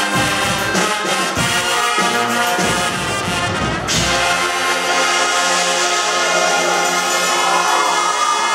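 Guggenmusik brass band of trumpets, trombones and sousaphones playing a loud pop arrangement with a pounding beat, then about halfway through landing on a long held final chord.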